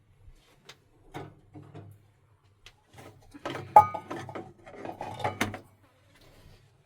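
Objects being handled: scattered knocks and rubs, then a busier clatter with one sharp, ringing metallic clink about four seconds in.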